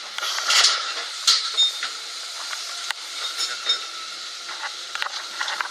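Rotar RCC25 hydraulic rail cutter attachment at work: metallic clicks, clinks and creaks over a steady hiss, with louder scrapes about half a second and a second in.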